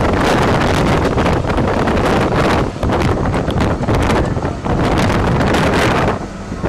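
Loud wind buffeting the microphone in gusts over a low rumble, easing off near the end.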